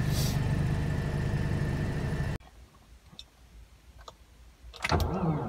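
A car engine running steadily, cut off abruptly a little over two seconds in, then near silence. Near the end a 2017 Kia Rio's engine is started from a −40 °C cold soak, coming in suddenly with a pitch that rises and falls over and over.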